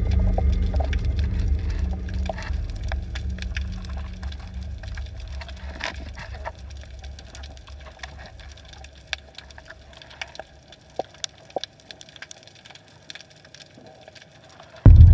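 Underwater sound picked up by a camera: a low steady hum fades away over the first half while sharp clicks and crackles come and go throughout. Just before the end a loud low rumble starts suddenly.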